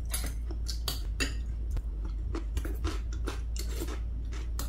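Close-up eating sounds: chopsticks and a metal spoon clicking and scraping against a glass bowl of rice, mixed with chewing. The clicks come irregularly, several to the second.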